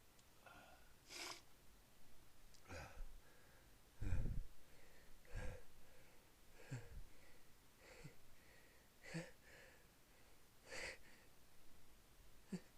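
A person sneezing over and over, with sharp breaths between: about nine short bursts, roughly one a second, the loudest about four seconds in.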